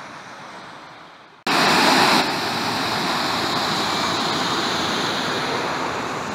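Water rushing through the open paddles of a canal lock: a steady rush that cuts in suddenly about a second and a half in, loudest at first and then holding even.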